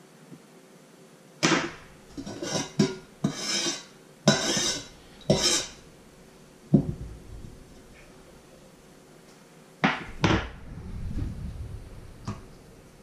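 A metal spoon scraping and knocking against an enamel bowl in a run of short bursts, a dull thud near the middle, then two sharp knocks and a brief low splash of water poured from a plastic jug into the bowl.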